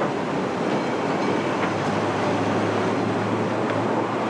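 Hong Kong double-decker tram running along its tracks, a steady rumbling rattle of wheels and car body with a low motor hum.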